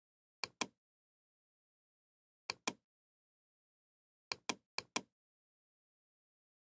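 Computer mouse clicking: four clicks, each a quick press-and-release double tick, with silence between them.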